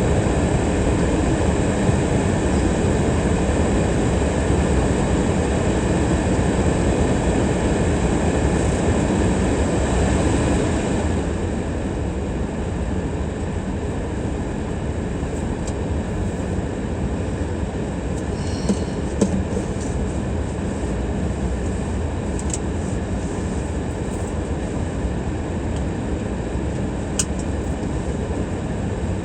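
Steady road noise of a car driving along city streets: a rumble of tyres and engine with a hiss on top. It is a little louder for the first ten seconds or so and then eases, with a few faint clicks later on.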